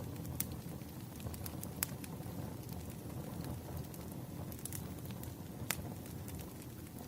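Campfire burning: a steady low rumble of flames with scattered sharp crackles and pops, the loudest a little under two seconds in and again near six seconds.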